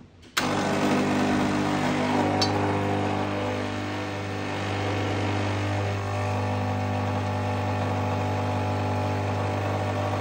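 Nuova Simonelli Oscar espresso machine's vibratory pump switching on about half a second in and running with a steady low hum while a shot brews; coffee starts to drip from the portafilter near the end.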